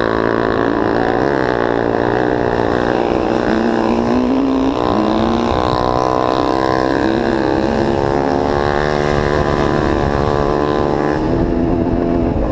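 ATV engine running under way, its pitch rising and falling with the throttle.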